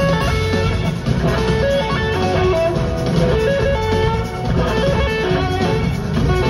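Live rock band playing an instrumental: electric guitars carrying held melodic notes over bass and drums, heard from the audience in a concert hall.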